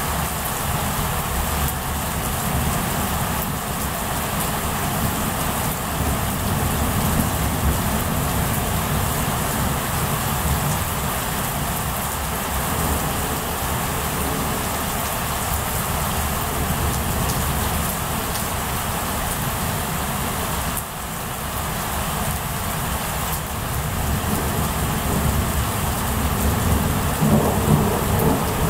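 Steady heavy rain with thunder rumbling low underneath, the rumble swelling near the end.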